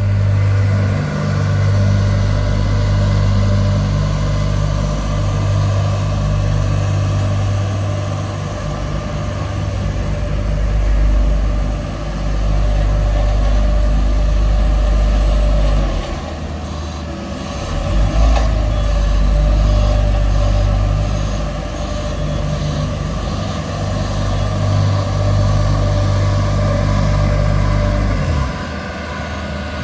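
Small tandem asphalt roller working over fresh tarmac, its diesel running with a steady deep hum. The hum dips briefly about halfway through and again near the end.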